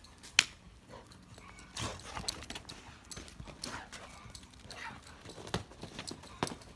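American Staffordshire terrier running on packed dirt with a ball toy in its mouth: irregular pawsteps and a few short breaths through the toy, with one sharp knock about half a second in.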